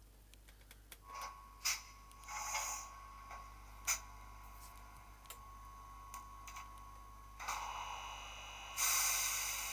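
Sound decoder of a Piko H0-scale BR 120 model locomotive playing its built-in sound effects through its small speaker: scattered clicks and short hisses over a faint steady whine, then a loud hiss near the end that slowly fades.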